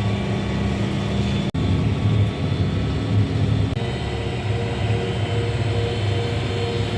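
Tractor engine running steadily under load, its tone shifting abruptly twice, about a second and a half in and again about halfway through.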